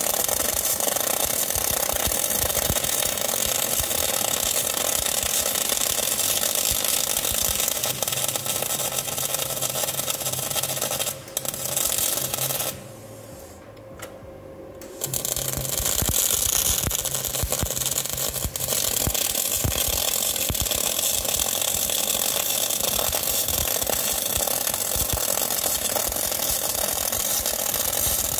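Semi-automatic gas-shielded (MAG) welding arc laying a fillet weld bead, a steady dense crackle and sizzle. A little before halfway the arc stops for about two seconds, then strikes up again and runs steadily on.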